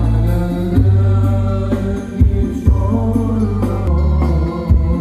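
Music played loud through a large outdoor sound-system speaker stack during a sound check: heavy, sustained bass notes that shift pitch a few times, a melodic line above, and sharp drum hits.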